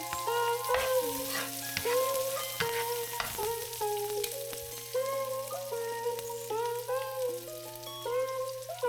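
Soft melodic background music, its notes changing in steps, over a steady sizzling hiss of food frying in a pan.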